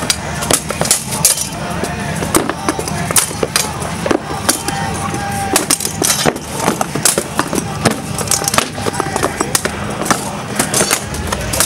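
Steel swords striking shields and plate armour in a full-contact armoured duel: a run of sharp, irregular clanks and knocks, several a second.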